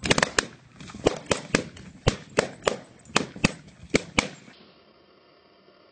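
A rapid series of sharp pops, about three a second, stopping abruptly a little over four seconds in, followed by faint hiss.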